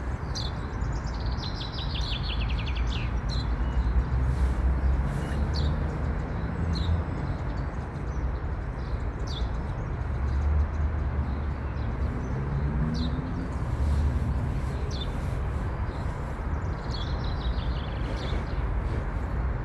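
Songbirds singing: a fast falling trill near the start and again near the end, with single short chirps every second or two between. Under them runs a steady low rumble.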